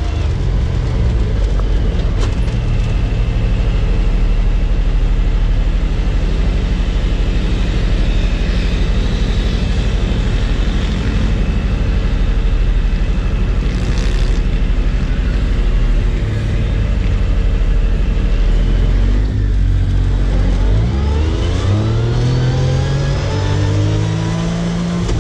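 Engine of an off-road side-by-side running under steady throttle while driving through sand. Around 19 seconds in the engine note drops as the throttle eases, then rises steadily as the vehicle accelerates again near the end.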